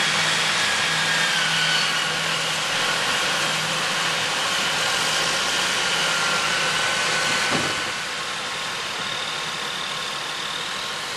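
Heavy diesel farm engines running steadily as a four-wheel-drive tractor tows a loaded semi dump truck stuck in the mud, with a faint whine that drifts slightly lower in pitch.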